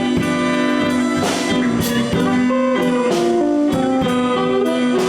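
Live blues band playing an instrumental stretch between sung lines: electric guitar picking a melodic fill over bass and a drum kit keeping a steady beat.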